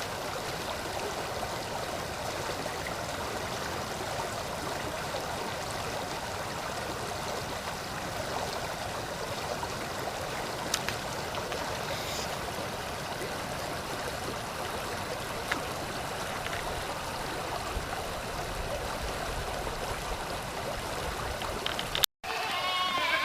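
Small creek flowing, a steady rushing and gurgling of water. It cuts off abruptly near the end.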